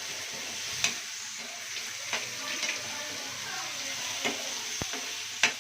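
Raw banana pieces sizzling in hot oil with onion and tomato in a kadai as they are stirred, the stirring utensil knocking against the pan a few times.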